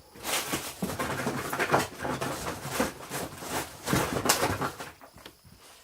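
Hands handling a box of replacement fans: irregular rustling and scraping, busiest in the first four and a half seconds, then dying away.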